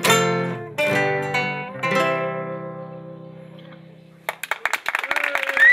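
Acoustic guitars strum a few last chords that ring out and fade away. Just after four seconds in, clapping breaks out abruptly.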